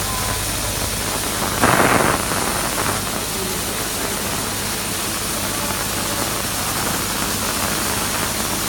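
UV flatbed printer running: a steady machine hum and hiss, with a brief louder rush about two seconds in.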